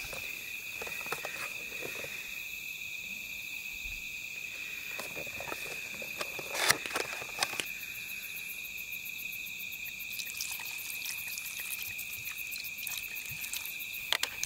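Insects trilling steadily, a continuous high ringing, with a few short clicks and knocks around the middle and near the end.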